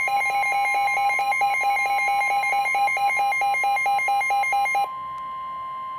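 Weather-alert tones: a steady, single-pitched NOAA Weather Radio warning alarm tone, with a loud, rapidly repeating alert beep over it. The beeping stops about five seconds in, leaving the steady tone sounding on its own.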